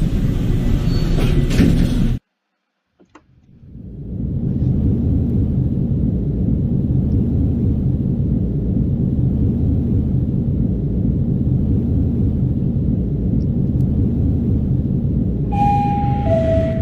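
Passenger lift cab travelling between floors: a steady low rumble of the moving car that builds up over about a second and then holds. Near the end a two-note falling arrival chime sounds over it. A short loud burst of noise at the start is cut off, followed by a moment of silence.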